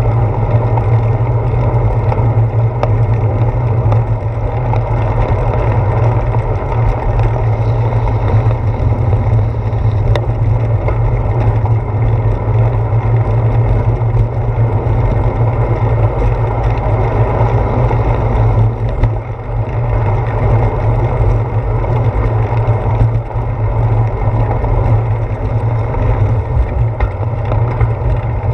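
Steady low rumble of wind buffeting and tyre-on-pavement noise, picked up by a handlebar-mounted GoPro Hero 4 on a moving bicycle.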